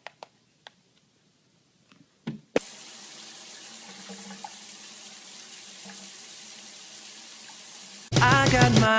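A few faint clicks, then steady running water that starts suddenly and runs on evenly for about five seconds. Loud music with a beat comes in near the end.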